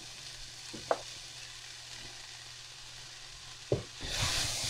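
Spaghetti squash strands and black beans sizzling in a hot frying pan as they are stirred with a wooden spoon. The spoon knocks against the pan twice, and the sizzle turns much louder near the end.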